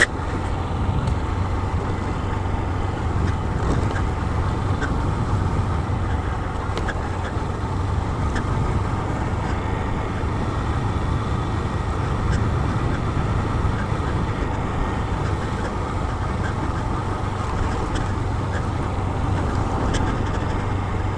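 Honda CG 160 Fan's single-cylinder four-stroke engine running steadily at cruising speed on a dirt road, with wind rushing over the microphone and a few faint ticks.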